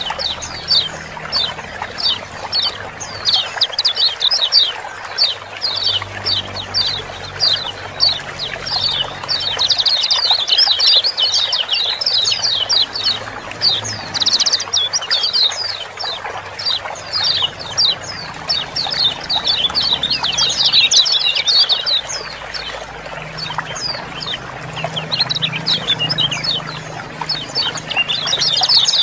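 Kecial kuning white-eyes giving a dense, rapid run of short, high 'ciak-ciak' chirps, several birds calling over one another, over a steady trickle of running water.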